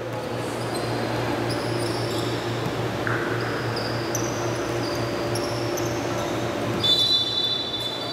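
Basketball sneakers squeaking on the gym floor in short, high chirps, over a steady low hum, with a louder squeal about seven seconds in.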